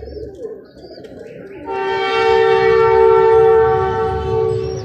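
A vehicle horn sounds one steady two-note blast lasting about three seconds, starting just under two seconds in; it is the loudest sound here.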